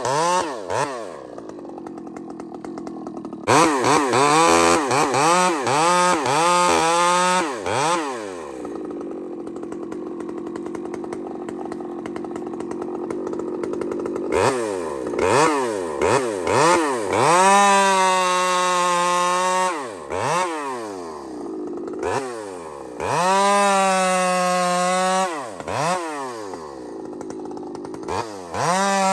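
Two-stroke chainsaw blipped through quick revs, dropping back to idle for several seconds, then held at high revs in several long bursts as the chain cuts through a rock-hard log, testing a freshly sharpened chain's edge.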